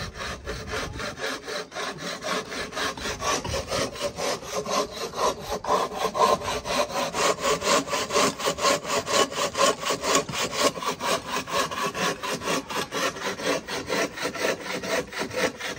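Hand bow saw with a coarse-toothed blade cutting through a round, bark-covered wooden pole, in brisk, even back-and-forth strokes, about four a second.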